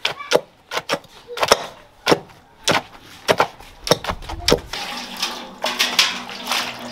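Pestles pounding boiled palm nut pulp, a wooden pestle in a wooden mortar and a metal pestle in a metal pot, giving sharp uneven knocks about twice a second. From about five seconds in, the strokes come amid denser clatter.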